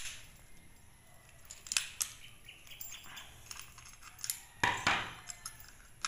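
Screwdriver clicking and scraping on an alarm padlock's housing while its screws are undone to open the battery compartment: scattered sharp clicks, with a louder scrape near the end.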